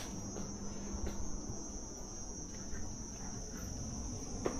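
Insects buzzing steadily in one high-pitched band, with a low rumble underneath and a sharp click near the end.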